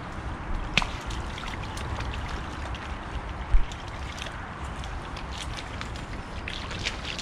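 Boxer dogs wading through a shallow rain puddle, their legs sloshing and splashing in the water with scattered small splashes. A single dull thump about three and a half seconds in.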